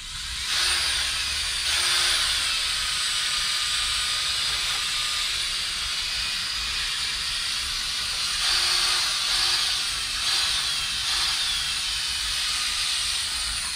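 Variable-speed cordless drill spinning a foam pad loaded with cutting compound against a plastic headlight lens: a steady motor whine and hiss that starts about half a second in and stops right at the end, swelling slightly a couple of times.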